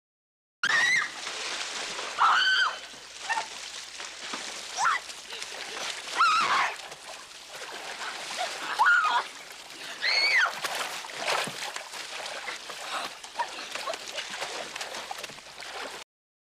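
Splashing and sloshing of muddy water as a woman thrashes in a mud hole, with about six short, high shrieks or cries breaking through the splashing.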